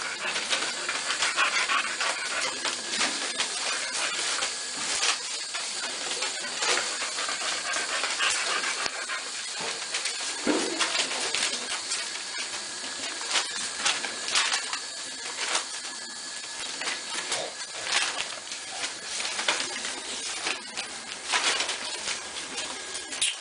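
American Staffordshire Terrier puppies and their mother moving about on a newspaper-lined floor: a steady rustling and crinkling of paper with many short, sharp clicks, and now and then small puppy whimpers.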